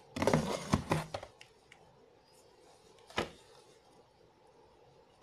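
Close handling noise: about a second of rustling and knocks at the start, then a single sharp knock about three seconds in, with a quiet room between.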